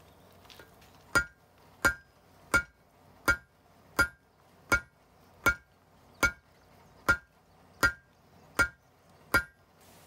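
Hand hammer striking a glowing billet of meteorite iron and high-carbon steel layers on an anvil: twelve even blows, about one every three-quarters of a second, starting about a second in, each with a short metallic ring. The billet is at welding heat, so the blows are setting the forge weld between the layers.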